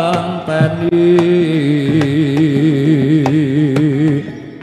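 Javanese jaran kepang gamelan music: one wavering melody line with fast vibrato over scattered sharp drum strokes, falling away shortly before the end.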